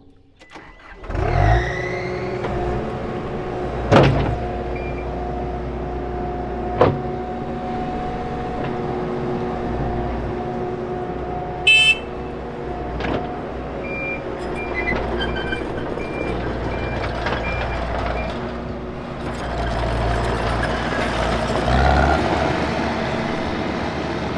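Compact track loader's diesel engine starting about a second in, rising in pitch, then running steadily as the machine moves. A couple of sharp metal clanks come early on, and past the middle a string of short high beeps sounds from the machine's warning alarm.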